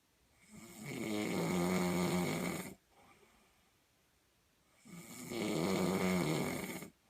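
Snoring while asleep: two long snores of about two seconds each, about four seconds apart, with quiet breathing between them.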